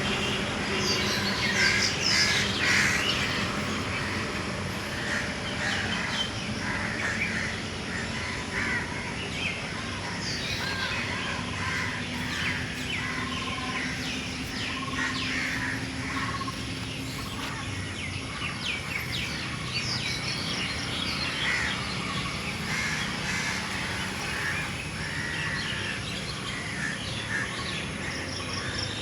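Several birds calling and chirping, many short calls overlapping, over a steady background hum; busiest and loudest in the first few seconds.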